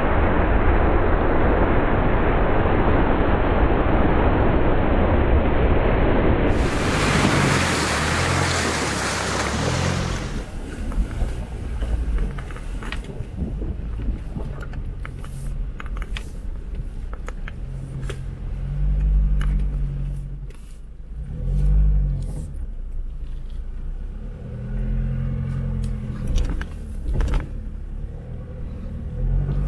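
Jeep Wrangler working along an off-road trail, its engine revving up and easing off several times, with scattered sharp clicks and knocks from the tyres on rough ground. The first few seconds are a loud, steady rush of noise.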